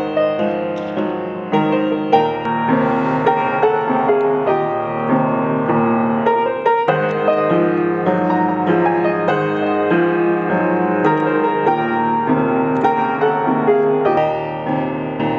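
Upright piano played solo, a melodic piece of chords and melody with notes struck in steady succession.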